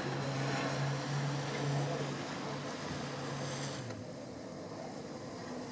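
A steady low mechanical hum over a constant wash of outdoor noise; the hum cuts off suddenly about four seconds in.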